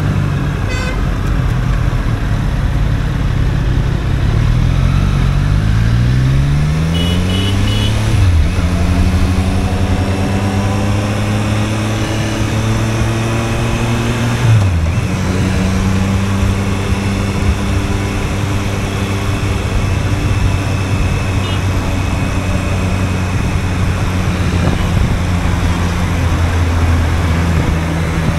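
Triumph Street Triple's three-cylinder engine heard from the saddle over wind and road noise. The revs climb, drop sharply at an upshift about eight and a half seconds in, climb again and drop at a second upshift around fourteen seconds in, then hold steady while cruising.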